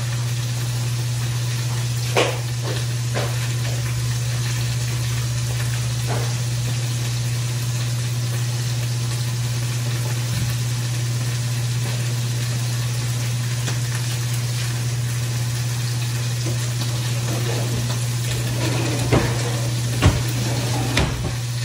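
Electric juicer motor running steadily: a constant low hum under an even hiss, with a few light clicks and knocks.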